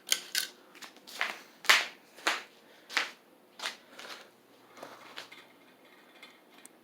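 Harbor Breeze Vector Elite ceiling fan set to high, giving a series of light, irregular clicks and taps about every half second that grow fainter and die away after about five seconds.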